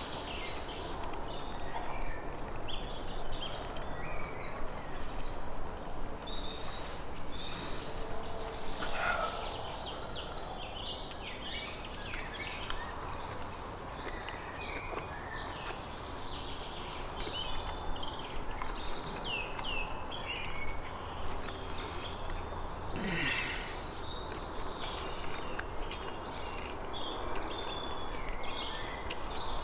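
Small birds chirping over and over, over a steady low background hum.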